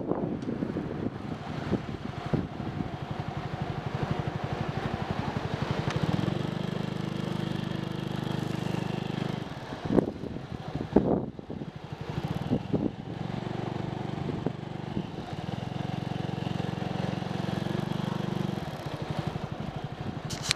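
Motorcycle engine running at low speed in slow, stop-and-go traffic, its firing pulses rapid and even. A couple of sharp knocks come about ten and eleven seconds in.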